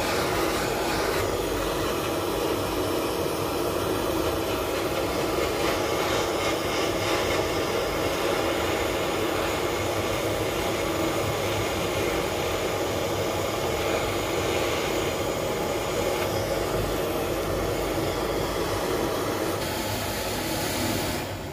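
Mini gas torch flame hissing steadily as it melts silver scraps in a small crucible.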